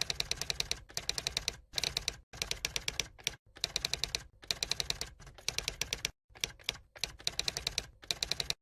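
Rapid clicking in short bursts, many sharp clicks a second, with brief pauses between bursts.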